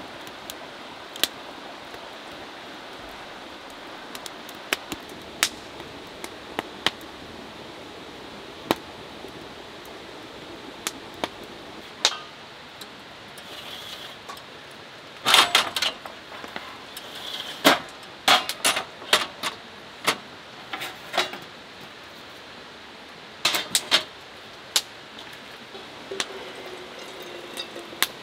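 Metal camp cooking gear being handled: a steel grill grate and stainless table frame clinking and clattering in several close clusters of sharp knocks, over a steady hiss. Near the end, water runs from a jug faucet into an aluminium kettle.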